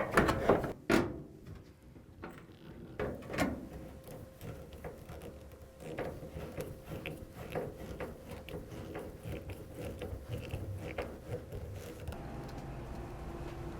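Handling noise from dryer parts being fitted during reassembly: a cluster of knocks at the start and another about three seconds in, then lighter, irregular clicking and rattling over a faint steady hum.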